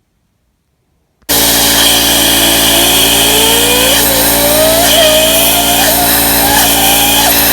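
An engine running loud, cutting in abruptly about a second in, its pitch climbing slowly with small wobbles.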